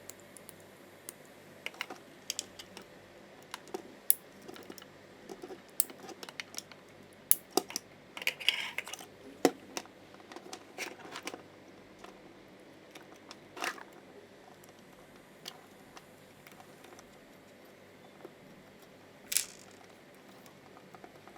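Scattered small clicks, taps and rustles of wires and plastic switch parts being handled during wiring of a smart switch module, with a short hiss near the end.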